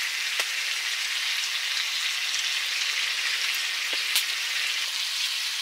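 Perch frying in butter in a pan, a steady sizzle with a few faint pops.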